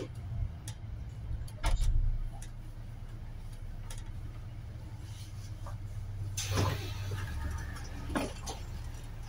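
Inside a city bus: the bus's low running drone, with a heavy thump about two seconds in and a short burst of noise around six and a half seconds.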